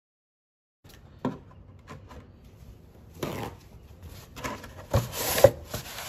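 Coarse 80-grit sandpaper rubbing over a plastic milk jug in uneven scratchy strokes, scuffing the surface so acrylic paint will grip, with a couple of sharp knocks near the end. The sound starts about a second in, after dead silence.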